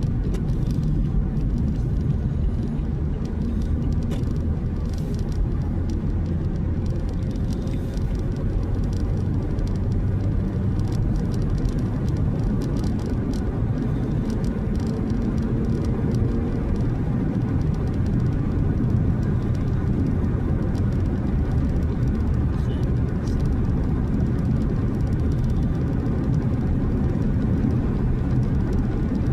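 Car driving along, with a steady low rumble of engine and road noise.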